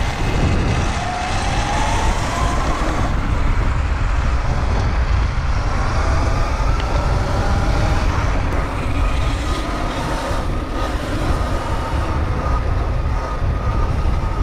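Electric dirt bike riding along a trail: the motor's whine rises in pitch as it speeds up, and settles into a steadier whine near the end. A heavy low rumble of wind runs underneath it.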